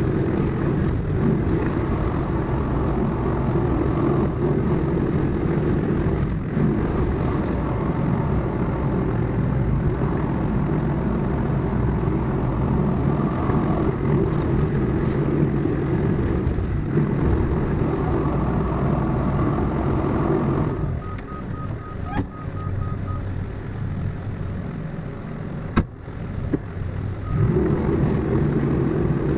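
Diesel engine of a heavy earthmoving machine running hard and steady, easing off for several seconds about two-thirds of the way through. While it is quieter there is a short run of rapid beeps and a sharp click, and then the engine picks up again.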